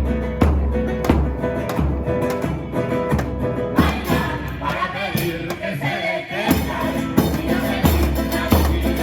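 Loud music with a steady percussive beat over a heavy bass line. The bass drops out for a couple of seconds around the middle, then comes back.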